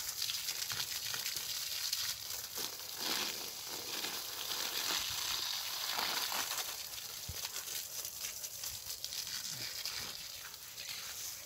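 Water from a garden hose spraying and spattering onto leafy vegetable plants, a steady, uneven hiss of water on leaves.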